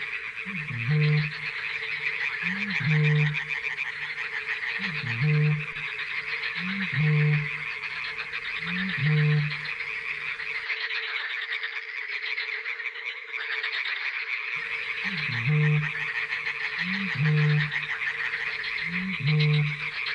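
A dense chorus of frogs calling without pause. Under it, the deep boom of a Eurasian bittern repeats about every two seconds, each boom preceded by a short upward gulp. The booms break off for a few seconds midway.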